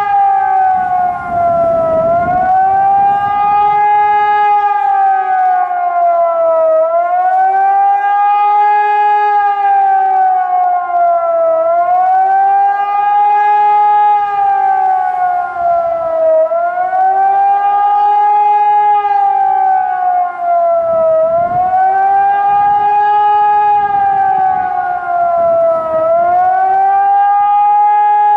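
ECN 1200 electronic high-performance civil-defence sirens sounding a loud wavering howl. The pitch swells up and falls back about every five seconds. This is the rising-and-falling tone of the German 'warning to the population' signal, sounded here in a test alarm.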